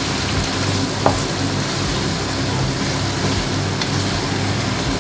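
Chicken pieces sizzling in oil and spice paste in an uncovered frying pan as they are fried down (bhuna) and stirred with a wooden spoon, with a single light knock about a second in.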